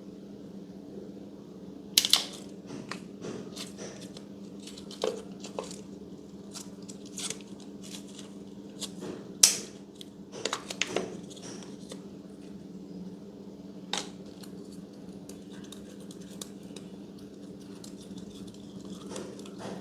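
Slime being handled by hand, giving scattered sharp clicks and pops over a steady low hum. The loudest pops come about two seconds in and near the middle, with a quick cluster just after.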